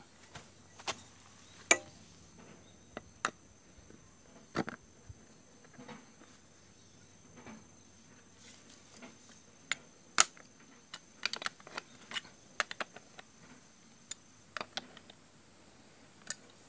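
Irregular clicks and taps of a metal hand tool and plastic-and-metal saddle clamp parts as a bicycle saddle is fitted onto a seatpost's clamp head and the clamp bolt is worked. A quick run of clicks comes just past the middle, and the sharpest click about ten seconds in.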